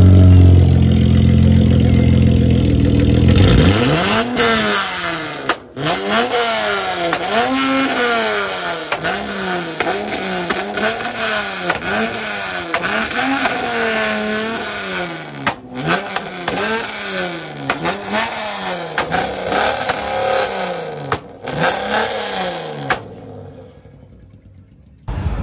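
Dodge Charger's Hemi V8 idling loudly through its exhaust, then revved in quick blips about once a second, over and over, the pitch rising and falling with each blip. The revving stops a couple of seconds before the end.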